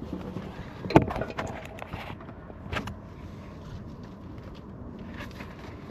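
Knocks and clicks of a portable 12-volt camping shower and its bucket of water being handled and set up: one sharp loud knock about a second in, a few lighter clicks after it, and another knock near three seconds.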